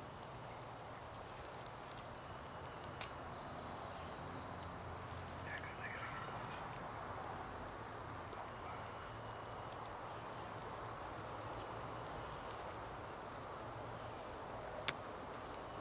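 Quiet woodland ambience: a steady faint hiss with a small bird's thin, high chips repeating about every second or so, a short call about six seconds in, and two sharp clicks, one about three seconds in and one near the end.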